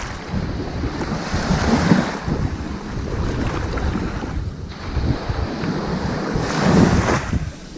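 Ocean waves washing softly onto a sandy beach, with two surges of surf about two seconds in and again near the end.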